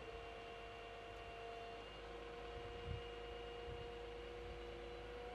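A 550-ton mobile crane's engine running steadily during the lift. It gives a hum of several held tones that shift slightly in pitch a couple of times, with low wind rumble on the microphone.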